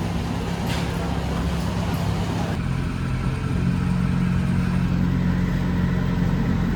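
Park excursion train running along its track, a steady low engine hum with clattering underneath; about two and a half seconds in the hiss drops away and the low drone grows stronger.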